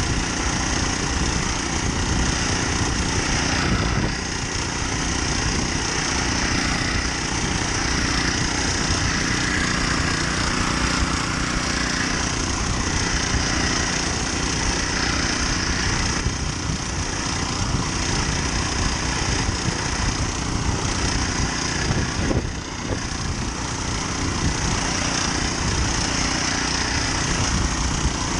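Small four-stroke Honda GX35 engine on a motorised kayak running steadily under load at cruising speed, pushing the kayak through a choppy sea.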